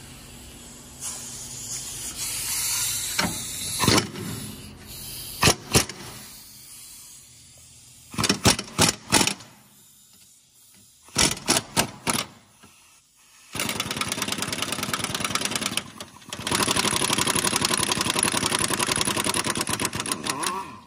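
Metal tool knocks and clicks on the rear strut's lower bolt, then a power tool, most likely a pneumatic impact wrench, running in two long rapid-fire bursts of about two and four seconds on the 17 mm nut as it is removed.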